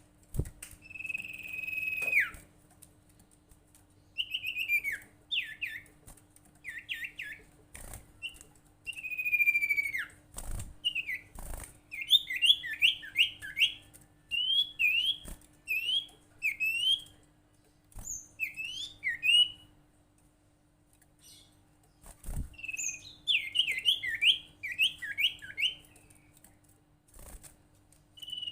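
Sirtu bird call: phrases of short, quick whistled notes repeated in runs, with two longer held whistles that drop in pitch at the end, about a second in and again near nine seconds, and pauses of a second or two between phrases. A few sharp clicks sound in between.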